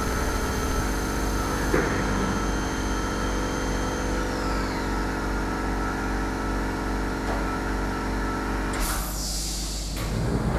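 Syil X5 Pro CNC milling machine running: a steady, layered machine hum and whine. A high tone slides down in pitch about halfway through, and a short rush of noise comes near the end.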